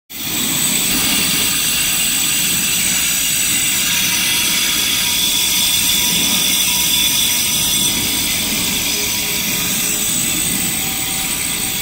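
Bench grinder running with a steady high whine while a small lathe tool bit for a boring bar is held against its wheel and ground sharp.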